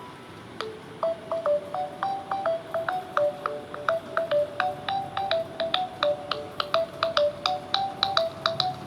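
JioPhone ringtone: a repeating electronic melody of short plucked notes, each with a sharp click, at about three to four notes a second. It starts under a second in, after a brief quiet gap.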